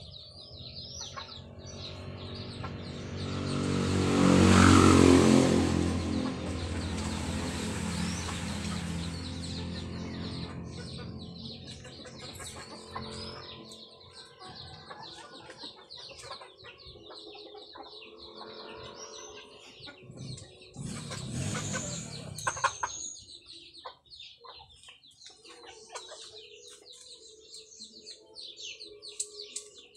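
Yard ambience: chickens clucking and small birds chirping. A few seconds in, a louder, mechanical-sounding noise swells up and slowly fades, and a second shorter loud stretch comes about two-thirds of the way through.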